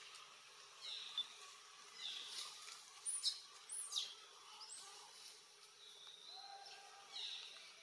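Birds chirping faintly over a steady outdoor hiss: short high calls about once a second, with two sharp rising whistles around the middle.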